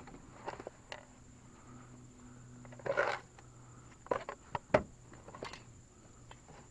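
Scattered short knocks and scrapes at irregular intervals, the loudest a longer scrape about three seconds in and a sharp knock near five seconds, over a faint steady low hum.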